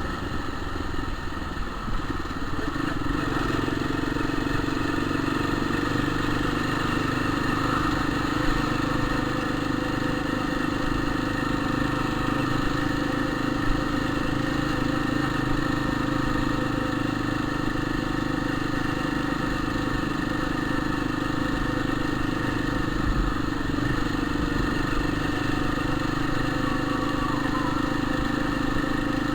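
Motorcycle engine running steadily, settling to an even speed about two seconds in.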